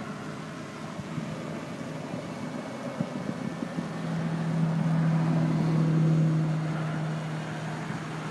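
Outdoor background noise with a steady low engine hum that swells about four seconds in and fades near the end, and a few light clicks before it.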